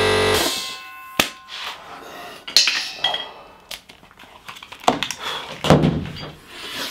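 A steady multi-tone hum cuts off about half a second in, followed by scattered light clicks, clinks and knocks of gear being handled in a small workshop, as ear defenders and a dust mask come off.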